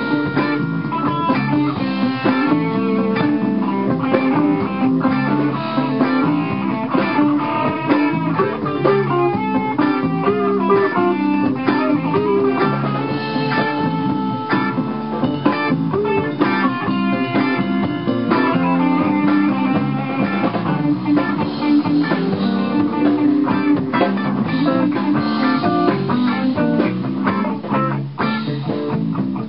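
Live band playing a bluesy boogie, led by two electric guitars with drums behind them, steady and loud throughout.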